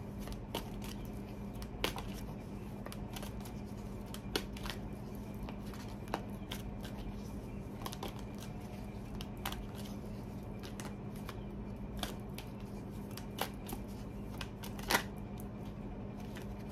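A tarot deck being shuffled by hand: scattered soft card taps and snaps at irregular intervals, one sharper snap near the end, over a steady low hum.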